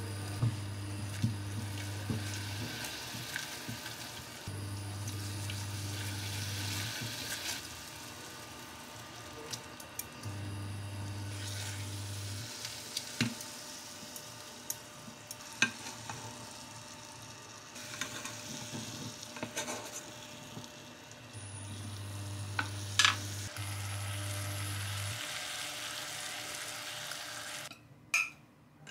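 Sauce sizzling and bubbling in a ceramic saucepan as a chicken cutlet is turned in it, with sharp clicks of metal tongs against the pan. A low hum cuts in and out every few seconds, and the sizzling stops shortly before the end as the pan comes off the heat.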